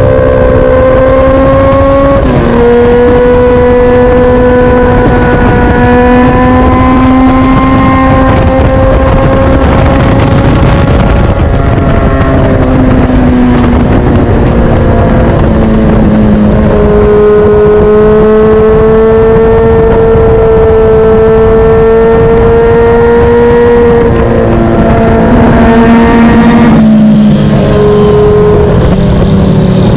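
A motorcycle engine running at road speed, with wind rushing over the microphone. The engine's pitch steps down a few times: about two seconds in, around sixteen seconds, and near the end.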